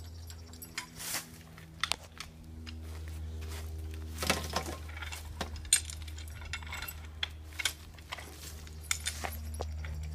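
Scattered knocks and metallic clinks from hand demolition work on a wooden deck, the loudest about four and five and a half seconds in, over a steady low hum.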